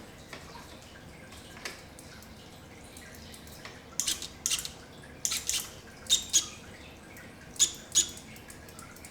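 SRAM GX AXS electronic rear derailleur shifting under its own motor, with no chain fitted: a series of short whirs in close pairs, starting about four seconds in.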